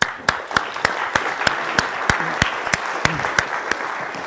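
Audience applauding, starting suddenly, with one person's claps close and sharp at about three a second standing out above the crowd's clapping.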